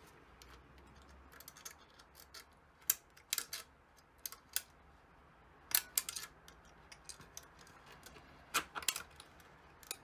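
Scattered sharp clicks and metallic clinks in small clusters: bolts, springs and a thin metal tool knocking against a hard 3D-printed plastic part as it is assembled.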